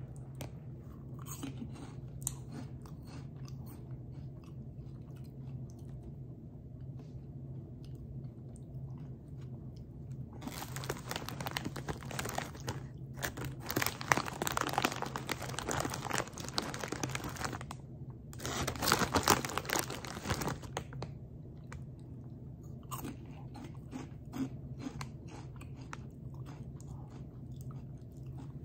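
A person chewing crunchy Flamin' Hot corn snacks close to the microphone. Scattered crunches at first, then a long stretch of dense, louder crunching from about ten seconds in to about twenty, then slower chewing again.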